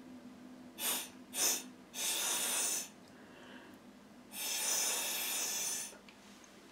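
A person blowing through a drinking straw onto wet full-strength alcohol ink: two short puffs, then two long steady blows.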